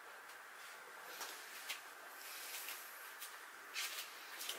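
Faint handling sounds: a few light, irregular clicks and a brief rustle as a person handles a paper model airplane on a wooden desk and moves close by, over low room hiss.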